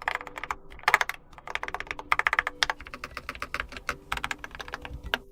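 Typing on a Keychron K4 HE keyboard with magnetic Hall-effect linear switches: rapid keystrokes in quick runs, with short pauses between them.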